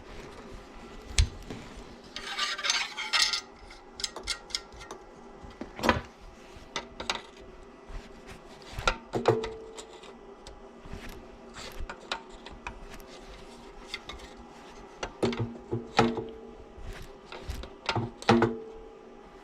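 Metal tools and parts clinking, knocking and scraping during hands-on work, a string of sharp irregular knocks, with a brief metallic ringing about two seconds in.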